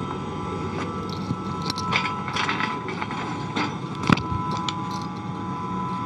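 Steady hum of the International Space Station's cabin fans and equipment, with a thin steady whine over it, broken by scattered light clicks, knocks and rustles from movement through the module, the sharpest knock about four seconds in.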